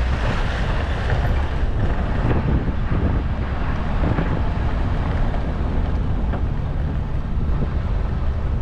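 Dump truck driving: a steady engine and road rumble, with wind noise on the microphone.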